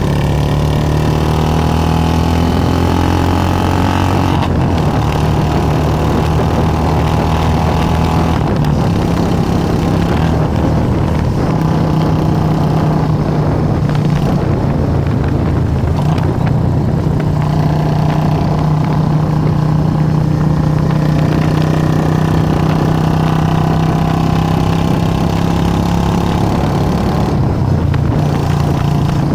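Royal Enfield Meteor 350's single-cylinder engine running through an aftermarket Punjabi-style exhaust, a loud, deep, steady exhaust note whose pitch shifts a little now and then.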